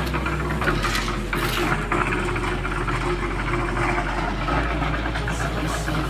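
Portable concrete mixer's engine running steadily at a constant speed.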